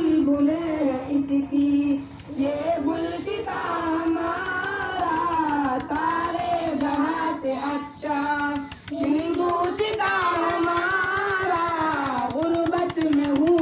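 A high voice singing a slow, held melody with music behind it, pausing briefly twice.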